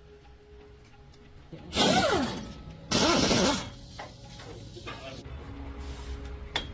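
Two loud whooshing sound-effect bursts with sweeping pitch, about a second apart, over quiet background.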